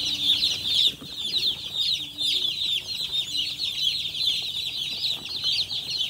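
A large brood of young broiler chicks peeping without pause: a dense chorus of many high, short, falling peeps.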